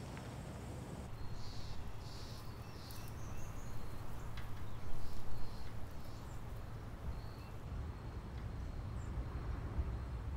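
Outdoor morning ambience: a steady low rumble with scattered short bird chirps, thickest in the first few seconds.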